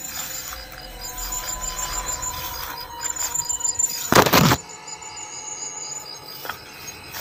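Leaves and branches rustling loudly for about half a second, four seconds in, as the brush is pushed through, over a steady high pulsing trill of night insects.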